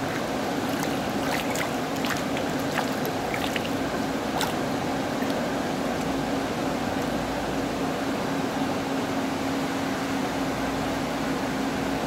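Fish tank aeration and water flow: steady bubbling and trickling water with a steady low hum beneath it. A few brief splashy clicks come in the first few seconds.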